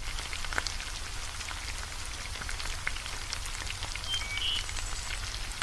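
Hot oil sizzling steadily with small crackles as a puri deep-fries in a pan.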